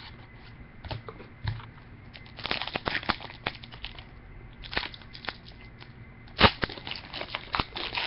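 Trading cards and a foil pack wrapper being handled, with scattered crinkles and card clicks. A few light clicks come about a second in, a cluster of crinkling comes around three seconds in, and a louder crinkle about six and a half seconds in starts a busier run of rustling.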